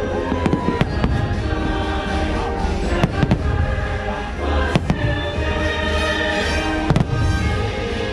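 Fireworks shells bursting with several sharp bangs, a second or two apart, over the show's patriotic soundtrack music.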